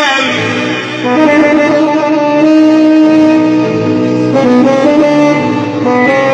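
Instrumental band music: a keyboard plays a melody of held notes in a saxophone-like voice, stepping from pitch to pitch over a steady low accompaniment.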